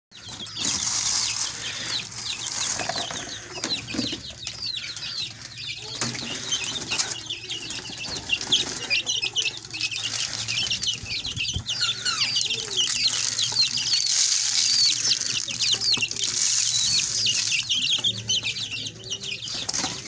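Many small birds chirping and peeping at once in a dense, overlapping chatter, with a few knocks about six and eleven seconds in.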